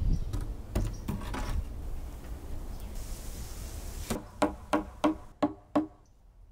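A wooden board being handled and knocked on top of a cinderblock wall: scattered bumps, then a quick run of about six sharp knocks, a few per second, about four seconds in.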